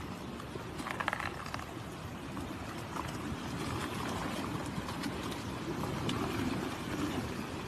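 Cars moving slowly through mud and water on a wet road: a steady rushing wash of noise with a few faint ticks.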